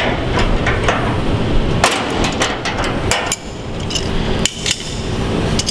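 Wrench working the locking nuts on a heater's threaded steel hanger rods as they are tightened: a run of irregular metallic clicks and knocks over a steady low rumble.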